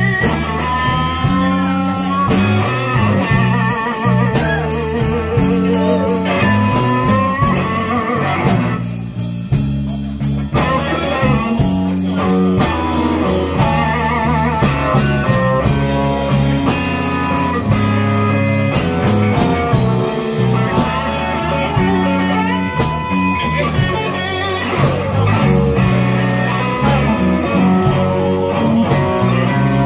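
Live blues band playing a slow blues: an electric guitar plays lead lines full of string bends and vibrato over bass guitar and drums.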